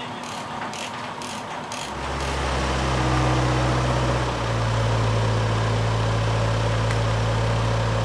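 A ratchet-strap tie-down clicks several times as it is released, then about two seconds in a heavy-equipment diesel engine starts and runs steadily, loud from then on, its pitch shifting slightly a couple of seconds later.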